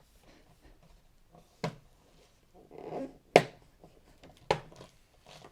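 Plastic bottom cover of an HP Victus laptop being pressed down, its clips snapping into place: three sharp snaps, the middle one loudest, with a brief scrape of plastic just before it.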